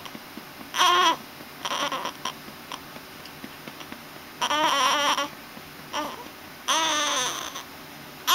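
Baby fussing with about four short, pitched cries spread across a few seconds.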